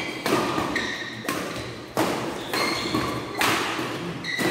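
Badminton rackets striking a shuttlecock in a fast doubles rally. A string of sharp hits comes roughly every half second to second, each echoing in a large hall.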